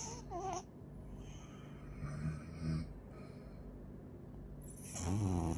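Snoring in slow breaths: a short wavering squeak at the start, faint low snores a little after two seconds, and a louder snore near the end.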